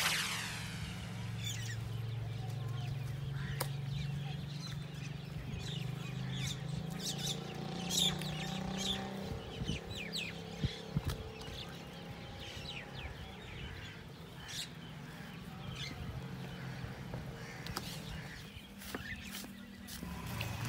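Birds calling in many short chirps and clucks over a steady low hum, with a few sharp clicks about halfway through.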